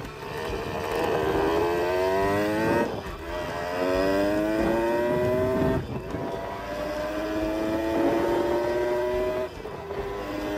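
A 1970 Yamaha CT1 175's single-cylinder two-stroke engine accelerating through the gears under way. The pitch climbs and then drops at three upshifts, the third run rising more slowly and holding steadier.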